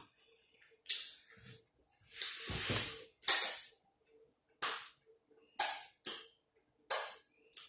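Close-miked eating mouth sounds: wet smacks and sucking as neck-bone meat is eaten by hand, about eight short sharp smacks with one longer suck about two seconds in.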